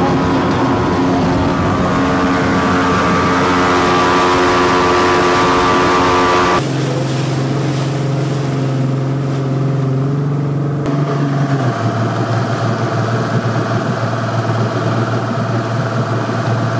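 Jet boat engine running at speed under a loud rushing noise. About six and a half seconds in the sound changes abruptly to a lower, steadier engine note with much less rush, and it steps down again a few seconds later as the boat comes off plane among the docks.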